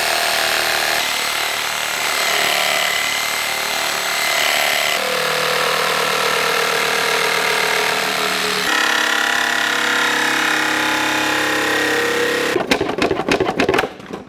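Corded reciprocating saw running steadily as it cuts through an unreinforced nylon 66 plastic intake manifold, which cuts easily with no glass fibre in it; the motor's pitch shifts twice during the cut. Near the end the saw stops and there is a quick run of sharp plastic knocks and clatters as the cut pieces are handled.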